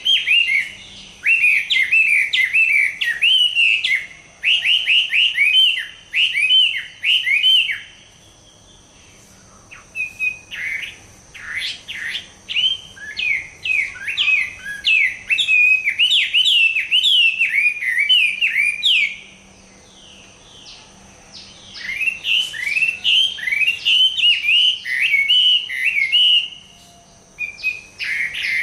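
Chinese hwamei (họa mi), a tamed bird in moult, singing: loud phrases of rapidly repeated, sweeping whistled notes, broken by two pauses of about two seconds.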